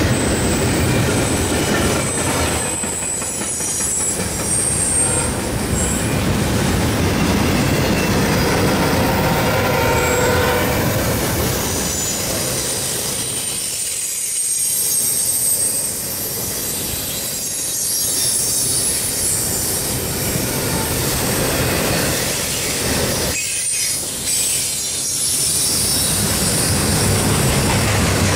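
Double-stack intermodal freight train's well cars rolling past: a steady rumble and rattle of steel wheels on rail, with thin high squealing tones from the wheels coming and going, strongest in the first ten seconds or so.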